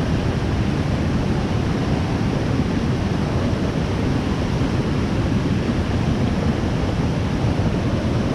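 Waterfall rushing: a steady roar of strong falling water.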